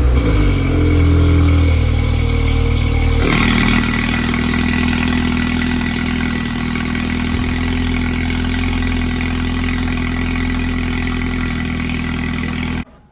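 Mini John Cooper Works F56's turbocharged four-cylinder engine running just after a cold start, held at raised revs for about three seconds before dropping to a steady idle. The sound stops abruptly just before the end.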